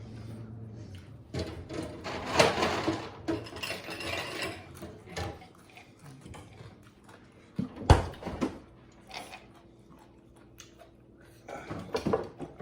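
Scattered clinks, knocks and rubbing of dishes and cutlery being handled at a meal table, with a sharp knock about eight seconds in.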